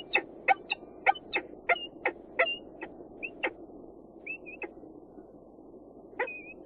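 Male peregrine falcon calling: a rapid series of sharp chipping calls, about three a second, thinning out after a few seconds into a few drawn-out higher notes, one of them near the end.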